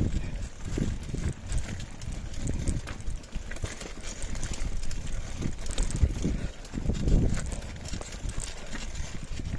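Uneven low thumps and rumble on a handheld phone's microphone as it is carried along a rocky dirt trail.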